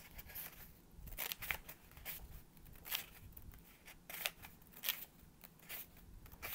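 Sheets of textured craft paper being handled and separated by hand: a string of irregular, short, crisp rustles and slides, about one or two a second.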